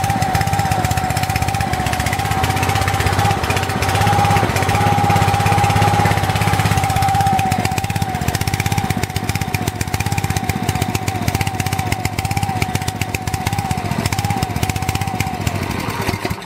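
Small single-cylinder OHV petrol engine running a bit rough on methylated spirits, with a steady whine along with it. Its running dips about halfway through and it cuts out suddenly at the very end, starved of fuel as the float bowl runs dry.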